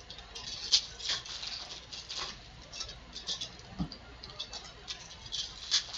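Foil trading-card pack wrapper crinkling and cards being handled, in short irregular crackly rustles, with a soft thump just before four seconds in.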